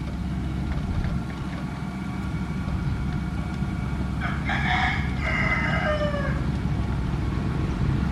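Motor grader's diesel engine running steadily with a low rumble, while a rooster crows once over it about four seconds in, the crow falling in pitch at its end.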